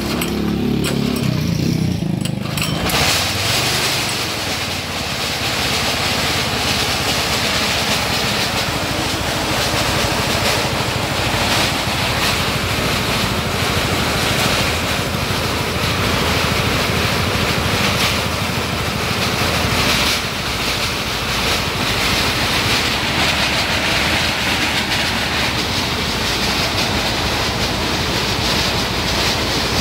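A small old petrol engine, pull-started by its recoil cord, catches within the first few seconds and then runs steadily, driving a motorized rice thresher with a threshing drum, blower fan and shaking sieve. From about three seconds in there is a loud, even mechanical rush of engine and spinning machinery.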